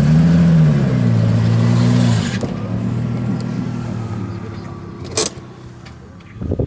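Car engine running, its pitch rising and settling at the start, then dropping away about two seconds in and fading. A single sharp click comes near the end.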